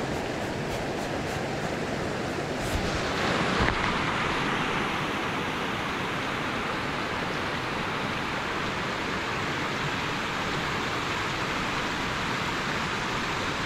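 Fast-flowing river rushing past a rocky bank: a steady hiss of moving water, turning brighter about three seconds in.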